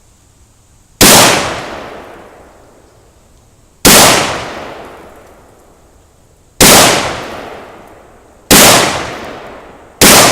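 Five single shots from an AK-47 pattern rifle (a Century Arms WASR-10 in 7.62×39 mm), fired slowly one at a time, each crack trailing off in a long echo.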